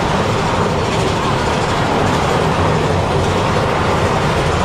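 Big Thunder Mountain Railroad coaster train running along its track through a rock tunnel. A steady, loud rattle and rumble of the cars is heard from the rider's seat.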